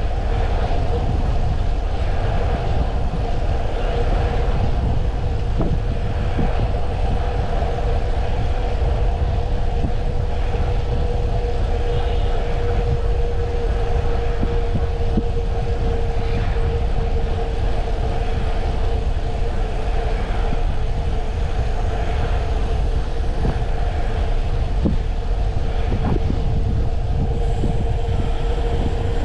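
Wind buffeting the microphone on a Brompton folding bike ridden fast downhill, over a steady droning hum, with a few light clicks and rattles.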